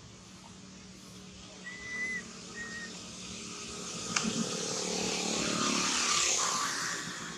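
A motor vehicle passes by: a steady engine hum with a rushing noise that builds to a peak about six seconds in and then fades. Two short, high whistle-like chirps come near two seconds in, and there is a single click about four seconds in.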